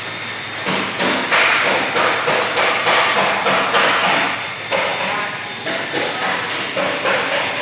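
Qualitas Q600P wall fans running, with a steady hum and airflow under a regular knocking or ticking about three times a second.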